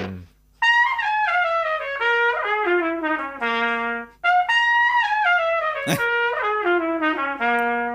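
Solo trumpet playing two runs of notes, each stepping down from high to low, with a short break between them about four seconds in. A brief click near the six-second mark.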